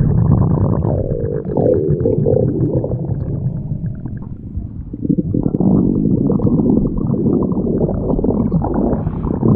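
Stomach growling: a long, continuous rumble that eases off about four seconds in and swells again about a second later.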